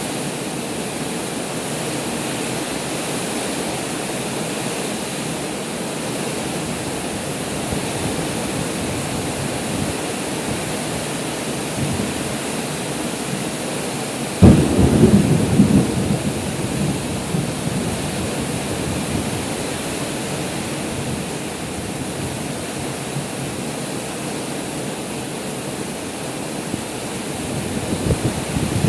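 Heavy rain falling steadily, with a sudden loud clap of thunder about halfway through that rumbles away over a few seconds.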